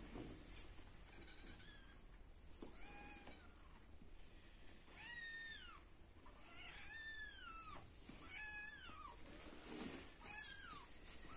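Young kittens mewing: a string of about six high, thin mews, each rising then falling in pitch, spaced a second or two apart and growing louder toward the end, the loudest about ten seconds in.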